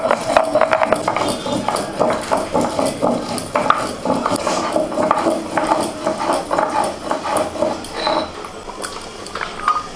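Stone roller scraping and knocking on a sil-batta grinding stone, crushing cinnamon and cardamom in quick repeated strokes.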